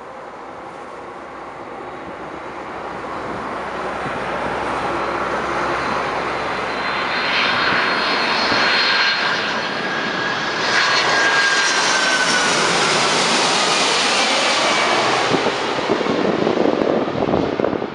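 Boeing 767-300F freighter's twin turbofan engines on its landing approach, a jet rush that grows steadily louder as the plane nears and passes. Around midway a whistling whine sits on top and drops slightly in pitch. The level falls away near the end.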